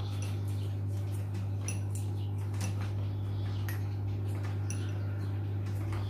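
A cloth rubbing and wiping the plastic motor housing of a hang-on-back aquarium filter, giving a few faint scuffs and small clicks, over a steady low hum.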